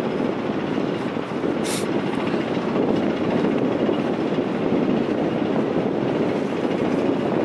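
Steady, loud wind rushing and buffeting against the microphone, with a brief sharper hiss about two seconds in.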